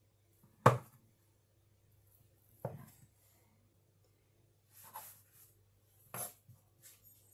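A large chef's knife cutting through rolled-out dough and knocking on the hard surface underneath: four sharp knocks a second or two apart, the first the loudest.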